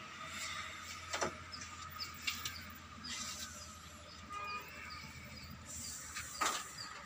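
A few sharp knocks, the loudest near the end, over a faint steady outdoor background, with a small bird chirping about three times a second through the second half.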